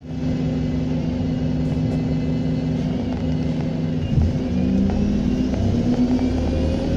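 Diesel engine of a service bus running, with the pitch shifting about four seconds in as it changes load, and a faint high turbocharger whistle over it.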